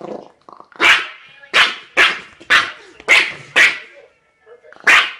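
A dog barking repeatedly, about seven sharp barks roughly half a second apart, with a short break near the end.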